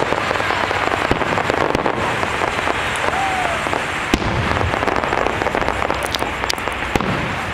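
Aerial fireworks bursting overhead, a dense run of crackling pops with a few sharper bangs about four seconds in and again six to seven seconds in.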